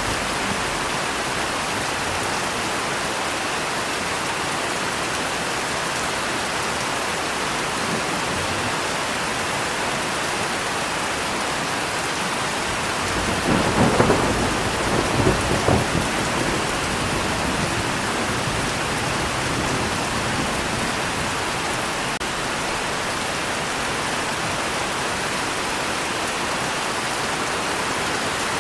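Steady heavy rain falling, with a roll of thunder about halfway through: a few seconds of cracking rumbles that die back into the rain.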